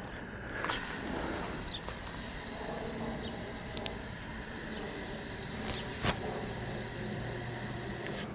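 Garden hose spraying water in a steady hiss that starts abruptly about a second in, with a few sharp clicks on top.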